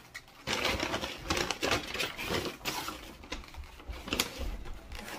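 Paper takeout bag rustling and crinkling, with a rapid run of small clicks and knocks as a black plastic takeout container is handled and lifted out.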